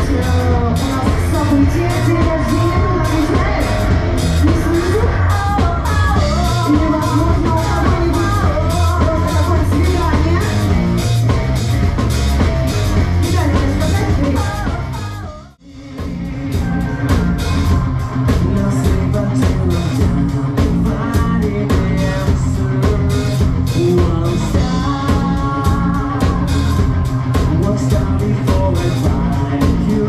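Live rock band playing with vocals, drum kit, electric guitar and bass guitar. The music drops out briefly about halfway through at an edit, then the band carries on.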